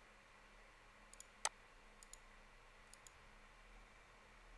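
A few faint computer mouse clicks over near silence, the sharpest about one and a half seconds in.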